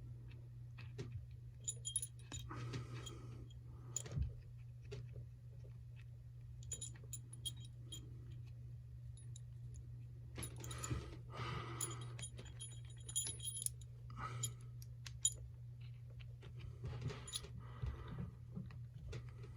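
Scattered small metallic clicks and clinks, with a few short bursts of rubbing, as a heavy metal trick bolt puzzle is twisted and fiddled with in the hands. A low steady hum runs underneath.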